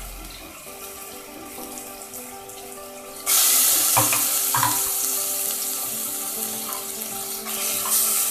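Wet ground spice paste frying in hot sesame oil in a pressure cooker. A loud, even sizzle starts suddenly about three seconds in.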